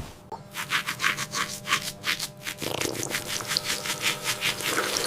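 Fast rhythmic scrubbing or rubbing strokes, about six a second, growing fainter after the first couple of seconds, over a faint steady hum.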